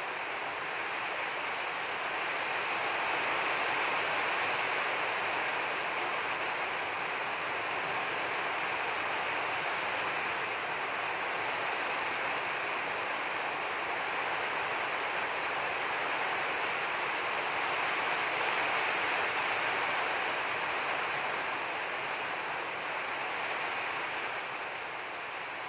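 A steady, even rushing hiss that swells a little around four and eighteen seconds in and eases slightly near the end.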